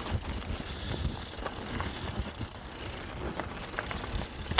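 Mountain bike rolling over a rocky trail: tyres crunching over rock, with scattered sharp knocks and rattles from the bike over a low rumble.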